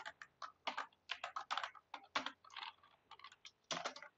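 Computer keyboard keys clicking as someone types terminal commands, in irregular runs of keystrokes with short pauses between them.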